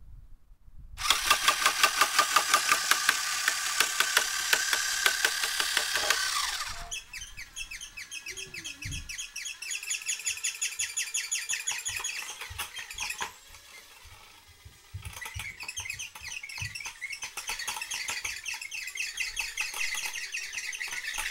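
A small electric motor on a homemade wheeled vibration-drive cart runs with a loud, rapid rattling pulse for about five seconds, then stops. A cordless drill then spins the roller of a rubber-band-driven test rig, whining with a beat of a few pulses a second; it drops away briefly midway and starts again.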